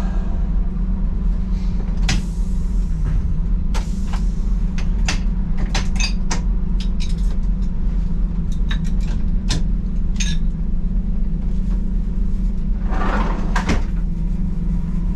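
Class 117 diesel multiple unit's engines idling at a standstill, heard inside the driver's cab as a steady low drone. Over it come a series of sharp clicks and knocks from the cab controls being worked, and a short rush of noise about 13 seconds in.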